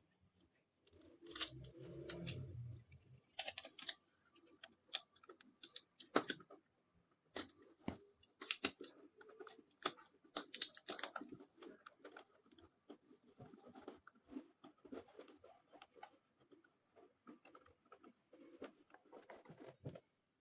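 Hand work on refrigerator parts: irregular sharp clicks and snips with scraping and rustling between them, and a brief low rumble near the start.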